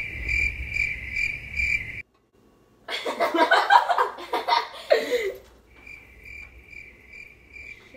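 Cricket chirping: a high, steady chirp pulsing a few times a second. It cuts off abruptly about two seconds in and comes back for the last couple of seconds, with voices and laughter in between.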